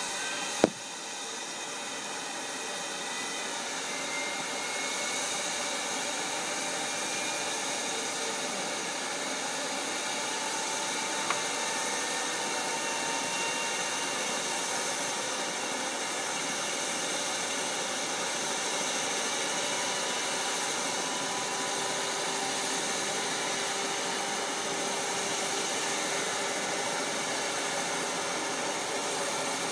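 Small engine of a walk-behind mowing machine running steadily at a distance, a hazy drone with faint wavering whine tones. A sharp click comes about a second in.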